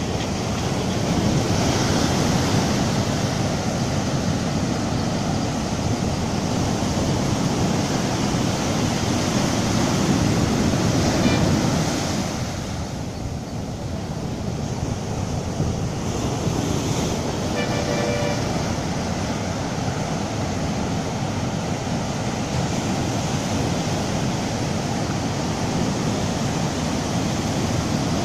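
Surf breaking on a sandy beach: waves rushing up the sand as swash and draining back as backwash in a steady wash of noise. It swells a little about ten seconds in and eases briefly a couple of seconds later.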